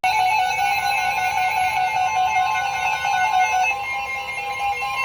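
Several NOAA weather radios sounding their alert tones at once: overlapping steady electronic tones that start abruptly, some pulsing on and off toward the end. The tones announce a National Weather Service warning being broadcast.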